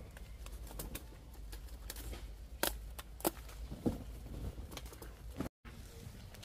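Ripe bell peppers being snapped off the plants by hand and put into a wicker basket: a few sharp snaps and knocks among rustling leaves, three of them louder in the middle.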